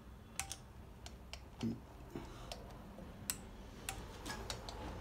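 Torque wrench clicking while nuts on a motorcycle engine crankcase are tightened to a set torque: about a dozen sharp, separate clicks at uneven spacing, with one duller knock a little over a second and a half in.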